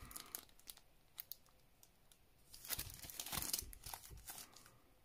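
Extra packaging around a vinyl record crinkling and tearing as it is opened by hand: a few light ticks, then a louder stretch of rustling and tearing from about halfway through.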